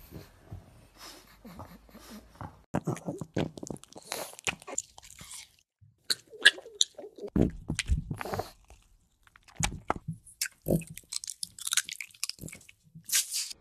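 A pug chewing watermelon close to a microphone: irregular wet, crunchy bites coming in clusters.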